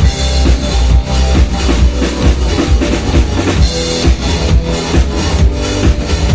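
Live rock band playing an instrumental passage, drum kit and bass keeping a steady beat of about two hits a second.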